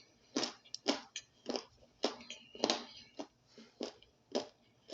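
Mouth crunching on hard toasted starch chunks, one crisp crunch after another, about two or three a second.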